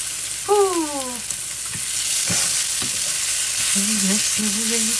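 Yak ribeye steaks sizzling on a hot electric indoor grill, a steady hiss that grows a little louder about two seconds in.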